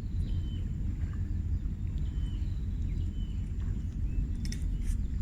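Short, thin, high bird chirps repeating about once a second over a steady low rumble, with a few brief clicks near the end.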